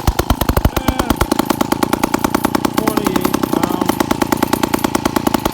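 Clinton D15 chainsaw's two-stroke single-cylinder engine running with a rapid, even firing beat; the beat quickens and the deep part of the sound thins about a second in.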